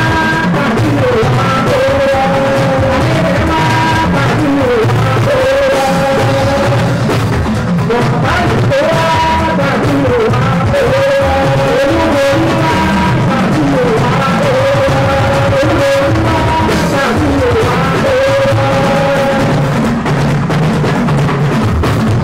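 Live band music: a male lead singer holds long, bending notes into a microphone over guitars and drums, with a steady beat.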